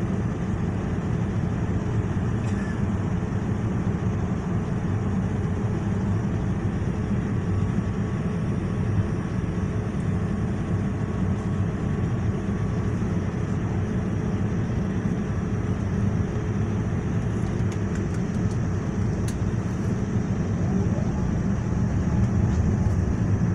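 Steady cabin noise inside a Boeing 787 airliner in flight: an even, low rumble of engines and rushing air.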